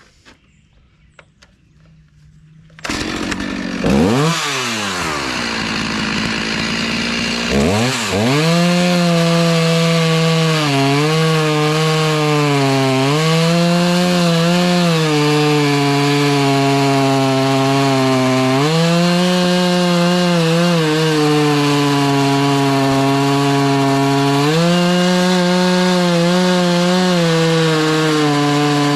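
Chainsaw starting about three seconds in, revving up and dropping back once, then running at full throttle as it cuts through a black oak log. Its pitch sags now and then as the chain loads up in the wood.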